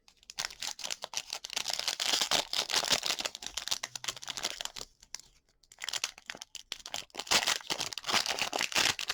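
A trading card pack's plastic wrapper being torn open and crinkled by hand, in two spells with a short pause about five seconds in.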